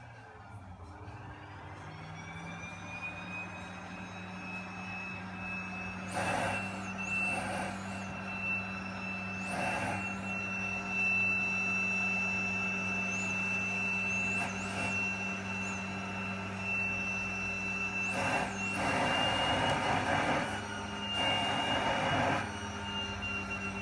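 Vacuum cleaner motor winding up to speed, then running steadily with a high whine over a low hum. Several times, for a second or two each, the rush of suction air gets louder.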